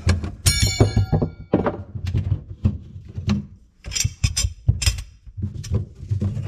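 An irregular run of knocks and thunks from hands-on work installing a garbage disposal, with a ringing metal clang about half a second in.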